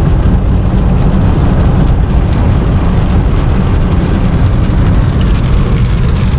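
Vehicle driving: loud, steady rumble of road and wind noise.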